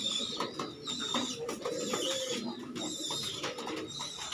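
Domestic pigeons cooing, with short high calls recurring about once a second and the clatter of wing flaps.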